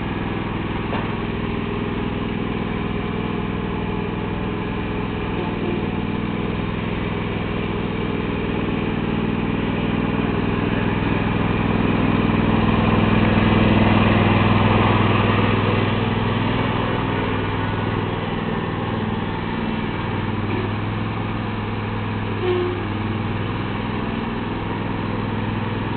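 Riding lawn tractor's small engine running steadily as it drives around, growing louder as it passes close about halfway through, then falling back.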